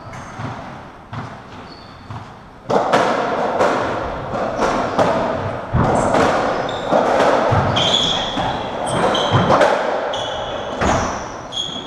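Racketball rally on a squash court: the ball smacks repeatedly off rackets, walls and floor. There are a few separate knocks at first, then from about three seconds in a quick run of hits, with short high squeaks of court shoes on the wooden floor.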